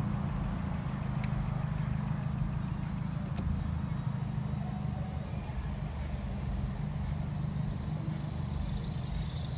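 Low, steady drone of a straight-piped Nissan Sentra B17 exhaust (muffler deleted), heard from inside the cabin while creeping at low revs in traffic.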